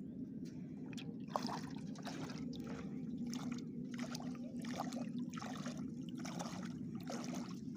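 Water splashing and trickling in a run of short strokes, about one to two a second, over a steady low hum.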